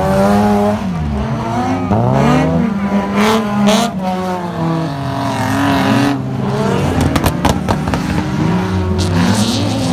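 Engines of several over-1600 cc autocross race cars running hard as they pass close on a dirt track. Their pitch rises and falls as they accelerate, shift and lift through the bend, with a quick run of sharp cracks about seven seconds in.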